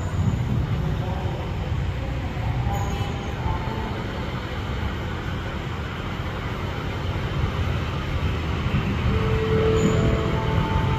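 Kiha 183 diesel railcar train rolling slowly toward the platform, its diesel engines giving a steady low rumble that grows a little louder over the last few seconds as it nears.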